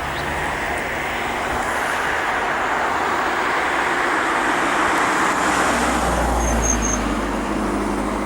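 Steady rushing noise of a passing vehicle, with a deep rumble building about five seconds in.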